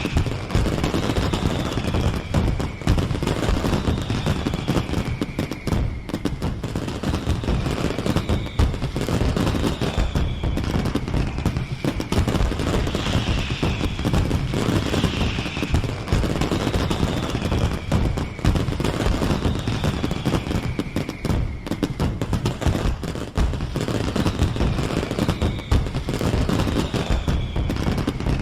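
Fireworks barrage: a dense, unbroken run of bangs and crackling, with a whistle falling in pitch that recurs about every two seconds.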